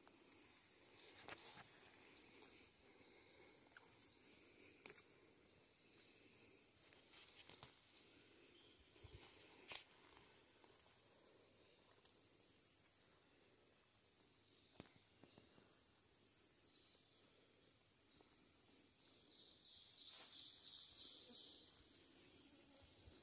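A songbird repeats a short, high, falling chirp about once a second, with a louder, faster phrase of song near the end. There are occasional faint clicks of footsteps on the forest trail.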